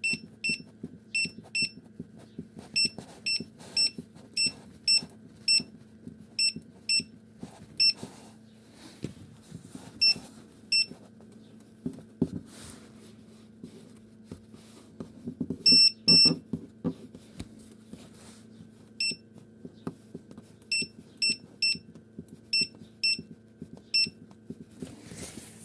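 Teplushka 72 incubator control unit beeping at each press of its temperature button: short high beeps, singly and in quick runs, with a pause in the middle. Each short press steps the set temperature down. A steady low hum runs underneath.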